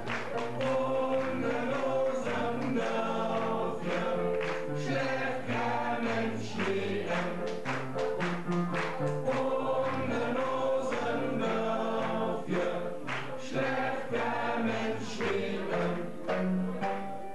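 A group of singers singing a German-language song together over instrumental accompaniment with a steady beat.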